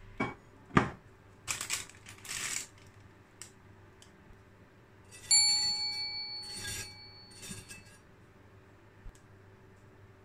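Kitchen handling sounds: two short knocks and a brief rustle of baking paper, then about five seconds in a sharp clink of tableware that rings on for about two seconds.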